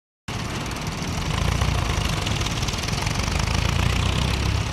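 Vintage tractor engine running steadily with a low rumble, cutting in abruptly just after the start.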